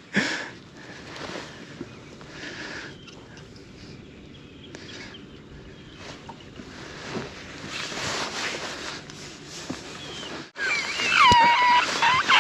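Faint outdoor noise of wind and water, then after a brief dropout, geese honking loudly near the end.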